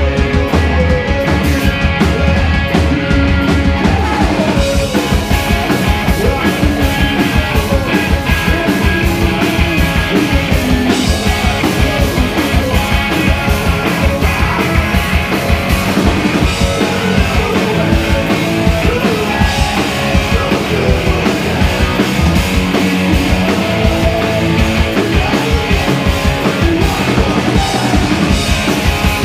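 Live punk rock band playing loud, with distorted electric guitars over a fast, steady drum-kit beat.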